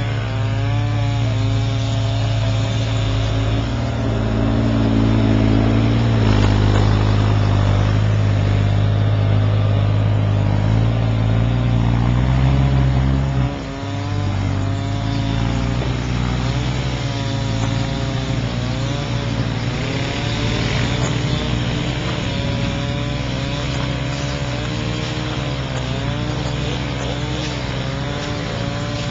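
A small gasoline engine running steadily, its pitch wavering up and down, with a brief break about halfway through.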